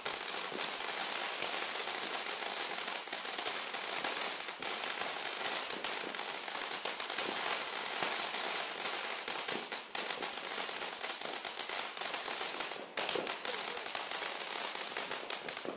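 Fountain firework spraying sparks: a steady hiss with many small, rapid crackles.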